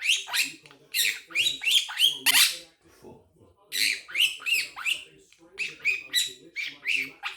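Quaker parrot (monk parakeet) chattering: quick runs of short, high squawks and chirps, many dropping in pitch, with a brief pause about three seconds in.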